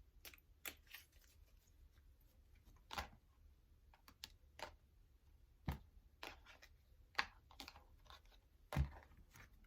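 Oracle cards being shuffled and handled, giving faint, irregularly spaced clicks and taps about a dozen times.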